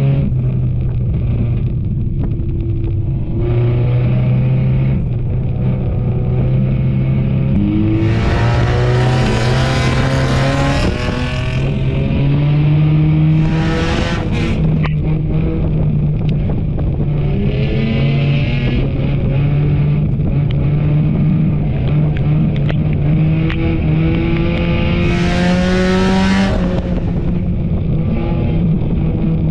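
Enduro race car engine running under load on a speedway, its revs rising and falling, with several louder bursts of rushing noise over it.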